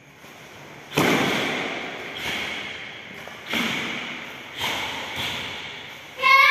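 Sharp snaps and thuds from a karateka's strikes and stamping steps during the Heian Yodan kata, five in a row echoing in a large hall, followed near the end by a loud held shout, a kiai with the knee strike.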